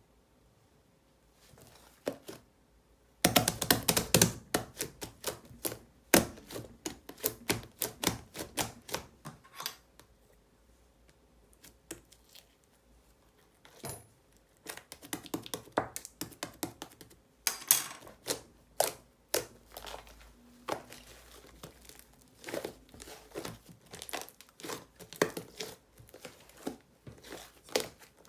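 A large batch of soft, sticky slime being squeezed and pressed by hand, making quick runs of crisp clicks and pops. It starts about three seconds in and has a short lull in the middle.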